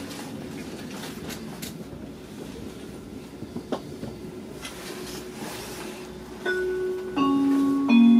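Inside a Rhein-Ruhr-Express Siemens Desiro HC electric train on the move: steady rolling noise with a few wheel clicks. About six and a half seconds in, the on-board announcement chime sounds, three falling tones, the last one the loudest, introducing the next-stop announcement.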